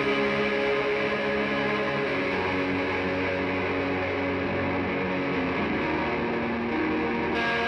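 Instrumental live music: guitar played through effects, held chords that shift every second or two.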